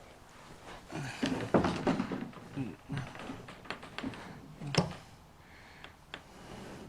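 Knocks, taps and scraping of a Tucktec folding kayak's plastic hull being handled and folded into shape, with the loudest knocks about a second and a half in and near five seconds.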